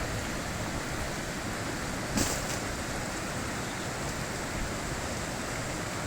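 Mountain river water rushing steadily, with a brief louder burst about two seconds in.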